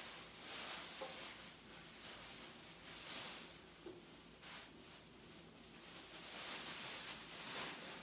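Faint rustling and light handling noises from someone clearing up a kitchen counter, in soft irregular swells with a couple of small clicks.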